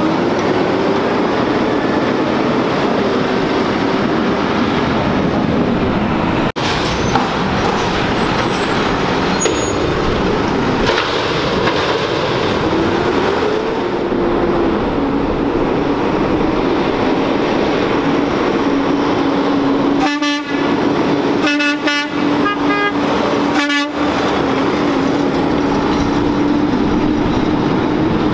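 Garbage truck's diesel engine running as it drives off down the street, its pitch rising and falling with the revs and then holding steady, over constant engine and road noise.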